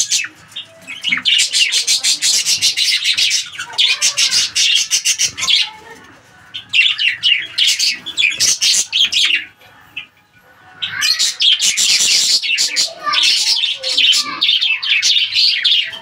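Budgerigars chattering: fast runs of high chirps and warbles in bursts several seconds long, with short lulls about six and ten seconds in.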